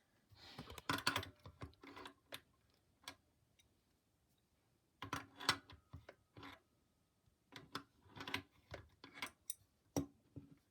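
Metal bolts and nuts clicking and rattling as they are unscrewed and handled while the motor is taken off an industrial sewing machine. The clicks come in three short clusters with pauses between them.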